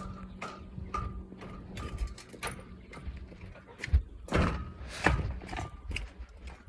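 Irregular knocks and clicks, with louder thuds about four and five seconds in, over a faint steady hum.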